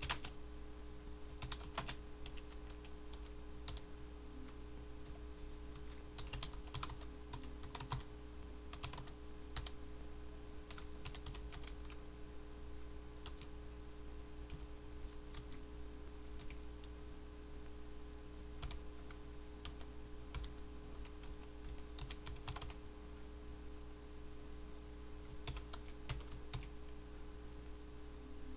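Typing on a computer keyboard: irregular key clicks, with short pauses, over a steady low electrical hum.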